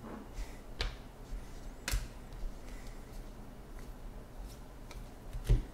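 Baseball trading cards being handled and flipped through by hand: soft swishes of cards sliding and a few sharp clicks of card edges, the loudest near the end with a low thump.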